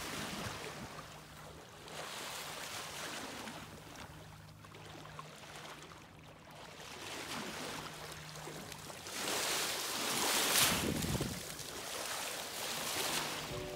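Sea water rushing and splashing past a sailing boat's hull, with wind. The wash rises and falls, swelling louder for a couple of seconds about ten seconds in. A low steady hum runs underneath for the first two thirds.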